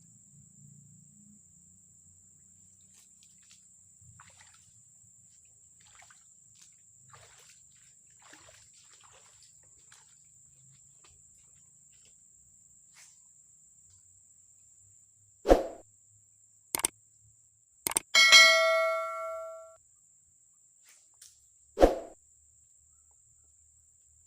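A loud knock, two sharp clicks, then a clear metallic ding that rings and fades over about a second and a half, followed by another loud knock a few seconds later. A faint steady high hiss, like insects, runs underneath.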